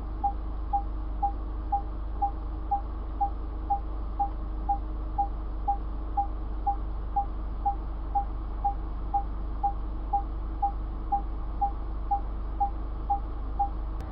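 Car parking sensor beeping while reversing: short, identical mid-pitched beeps at a steady rate of about two a second over a low steady hum. A slow beep rate like this means an obstacle is still some distance behind.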